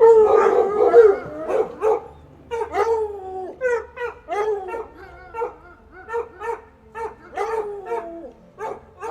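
A dog vocalising: one long call of over a second, followed by a string of short, pitch-bending barks and whines about one or two a second, with a longer falling whine near the end.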